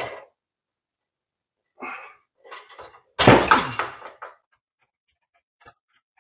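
Hand tools clinking against the brass fittings of a flexible gas connector as the connector is undone. A louder thud comes about three seconds in.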